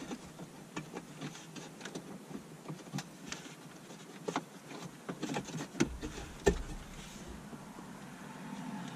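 Scattered clicks, taps and plastic knocks as the stock head unit of a 2014 Jeep Compass is pulled out of the dash and its wiring plugs are handled behind it, with the two loudest knocks a little after halfway.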